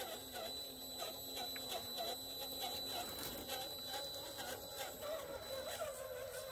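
Electric motor and geared drivetrain of an RC rock crawler whining as it crawls slowly down a wooden ramp, its pitch wavering with the throttle.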